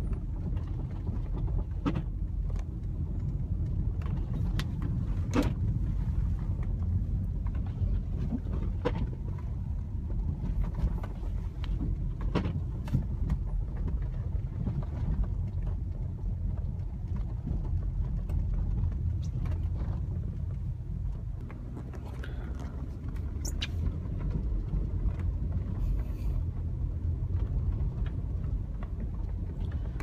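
Inside the cabin of an almost 20-year-old Honda driving through snow: a steady low engine and road rumble, with a sharp click every few seconds.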